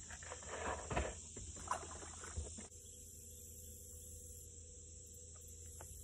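Rustling and a few sharp clicks of fishing line and tackle being handled, then a steady high drone of summer insects, with a faint steady hum under it after a cut.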